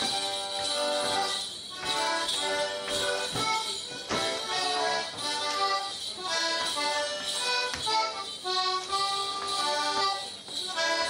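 Accordion playing a brisk jig tune in a steady dance rhythm, with the jingle of a Morris dancer's leg bells and occasional sharp steps.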